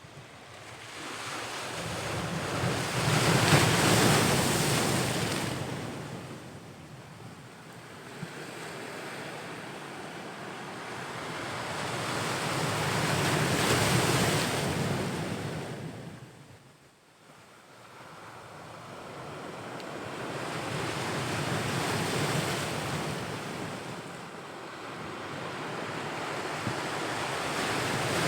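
Ocean waves breaking and washing on the shore. The sound swells and fades in slow surges every eight to ten seconds, with a brief lull between sets.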